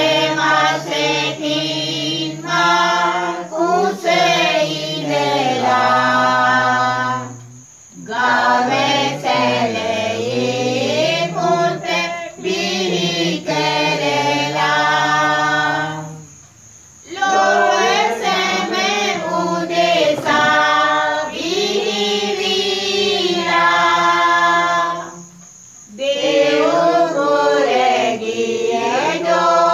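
A group of voices singing pasan, the Sinhala Catholic Lenten chant of Christ's Passion. The singing comes in long drawn-out phrases, with a short breath pause about every nine seconds.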